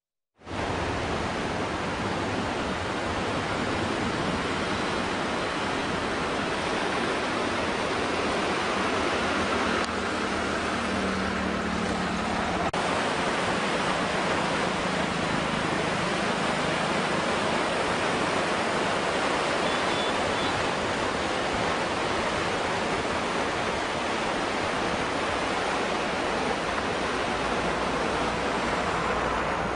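The swollen Godavari River in flood, its floodwater rushing with a steady, even noise.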